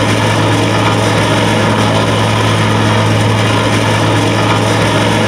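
Small engine of a walk-behind construction machine running steadily at one speed: a strong low hum with a rough, noisy rattle over it.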